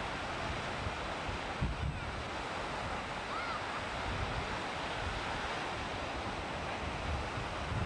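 Surf breaking and washing up a sandy beach in a steady rush, with wind buffeting the camcorder microphone in low rumbling gusts.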